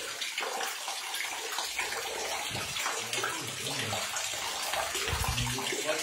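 Water sloshing and splashing irregularly as a person wades through knee-deep floodwater in a flooded mine tunnel, over a steady hiss of water.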